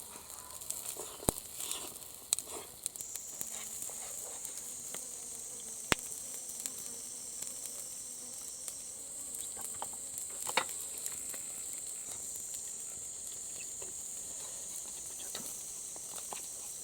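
Cicadas buzzing in a steady high drone that sets in about three seconds in, with a few sharp clicks scattered through it.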